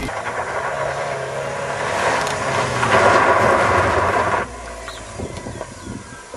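A Rover car with a tipper truck close behind drives along a loose gravel lane, making a loud, rushing noise of tyres on gravel. The noise builds, then cuts off abruptly about four and a half seconds in, leaving a much quieter background.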